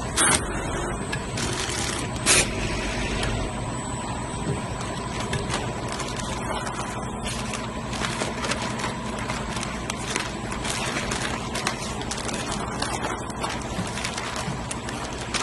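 Vertical form-fill-seal packaging machine running with a steady mechanical noise and a faint constant whine. Two short sharp clacks come in the first few seconds, about two seconds apart. Later comes the crinkle of the plastic film snack bags being handled.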